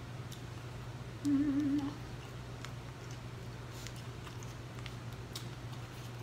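A woman's brief closed-mouth "mmm" hum with a wavering pitch about a second in, lasting about half a second. Faint scattered clicks and crinkles come from a plastic packet being handled, over a steady low electrical hum.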